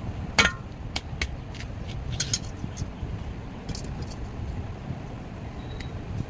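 Scattered light metallic clicks and clinks, like small metal objects being handled, over a steady low rumble.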